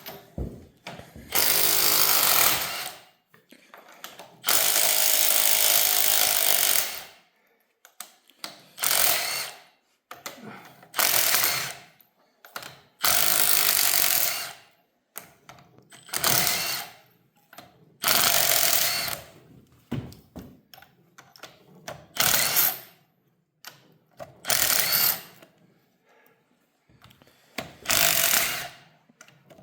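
Impact wrench hammering in repeated bursts of one to three seconds, about ten in all with short pauses between, zipping the head bolts off the other cylinder head of a Chevy 350 V8.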